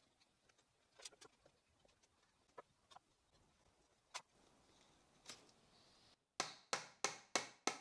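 Faint, scattered taps of pine pieces being handled and set in place on a workbench, then a run of about five sharper wooden knocks, about three a second, near the end.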